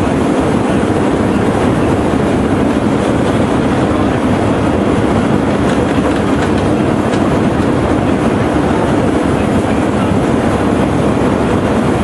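Boeing 707 cabin noise in flight: a loud, steady rush of engine and airflow sound that does not change.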